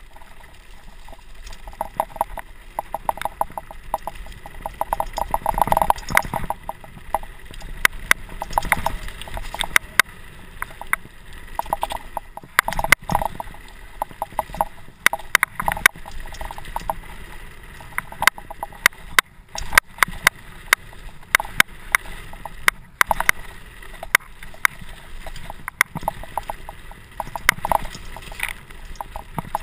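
Mountain bike clattering down a rough gravel trail: tyres crunching over loose stones, with frequent, irregular sharp knocks and rattles from the bike as it bounces.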